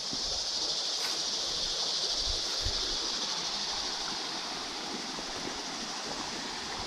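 Shallow creek water running over rocks, under a steady high-pitched drone of cicadas. Two soft low thumps a little over two seconds in.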